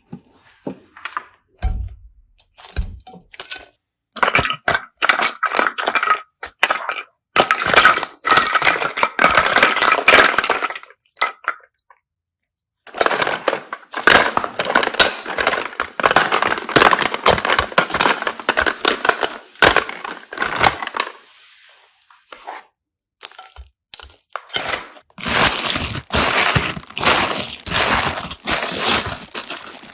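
Glitter slime being squished and worked by hand, crackling and popping in long bouts with short pauses between them.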